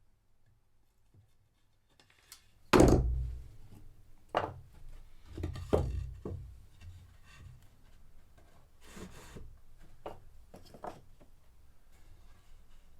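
Wood being handled in a small room: one heavy thud about three seconds in, then a run of lighter knocks and rubbing scrapes.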